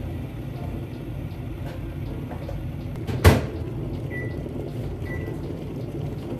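A microwave oven door shuts with a sharp thump about halfway through, then two short high electronic beeps about a second apart, over a steady low hum.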